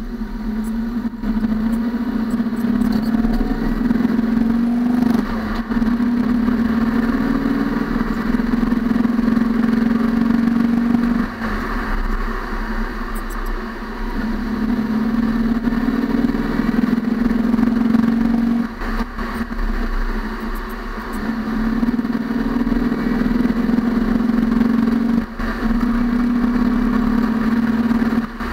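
Tyre and road noise of a moving car, picked up inside its front wheel well: a loud, steady drone that eases off and comes back several times.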